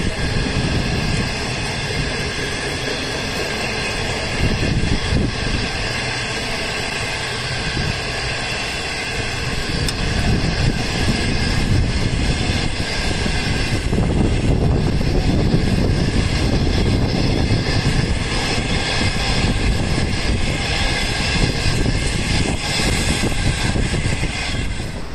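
Locomotive-hauled passenger coaches rolling past close by: a steady rumble and clatter of steel wheels on rail, growing louder about ten seconds in.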